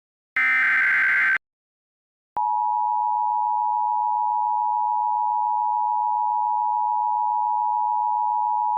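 Emergency Alert System SAME header: one burst of harsh digital data screech lasting about a second. After about a second of silence, the EAS two-tone attention signal starts, a loud, steady dual tone that holds without change.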